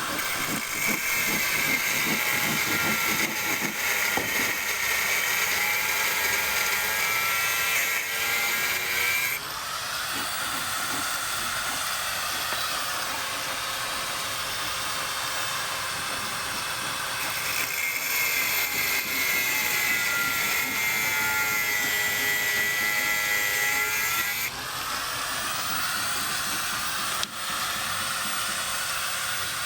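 Electric power tool running under load with a steady high whine, in two long runs separated by a pause of about eight seconds, over a constant hiss of site noise.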